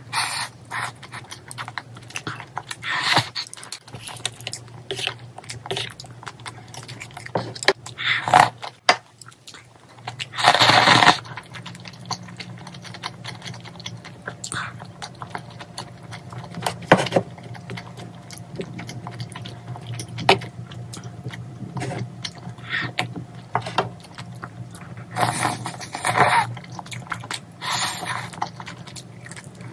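Close-up eating sounds: chewing pork-bone soup meat and rice, with chopsticks clicking and scraping on the bowls in short irregular bursts. A louder, noisier sound lasting about a second comes about ten seconds in.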